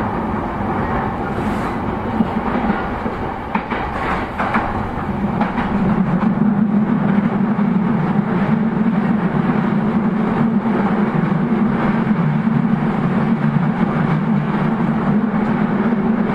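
Running sound of a JR East E233-0 series electric commuter train heard from inside the car: steady rolling noise of wheels on rail, with a quick cluster of clicks about four seconds in. The rolling noise grows louder about six seconds in and then holds steady.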